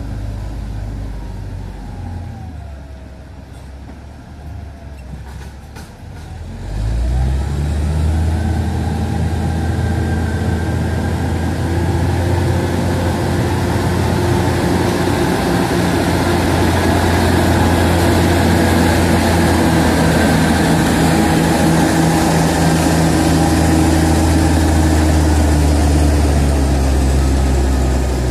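Crawler bulldozer's diesel engine running at lower revs, then about six and a half seconds in it rises sharply to a loud, steady, heavy run as the dozer pushes along the dirt road.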